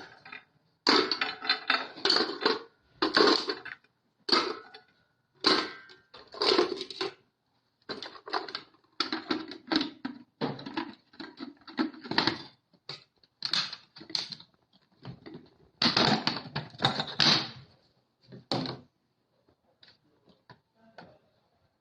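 Electric meat grinder crushing pieces of brick in a series of short, irregular bursts of clattering and crunching. The bursts stop about 19 seconds in, leaving only faint scraping.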